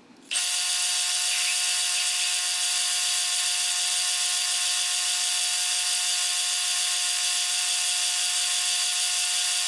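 Metal lathe starting up about a third of a second in and then running steadily while a quarter-inch twist drill, fed from the tailstock, bores a pilot hole into the end of the spinning bar stock. The sound is an even mechanical whine of several steady tones over a cutting hiss.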